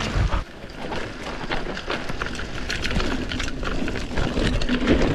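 Mountain bike riding a wet, muddy trail: the bike rattles with many quick clicks and knocks over a low, uneven rumble.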